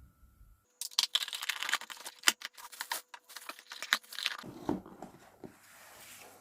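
Plastic packaging being crinkled and torn open by hand: a dense crackling for about three and a half seconds, then a few soft handling knocks.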